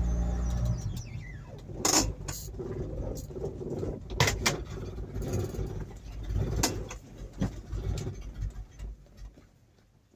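Mk3 Ford Cortina engine running, then dying away with a falling whine in the first two seconds, followed by scattered clicks and knocks as the car's door is opened. The sound fades almost to nothing near the end.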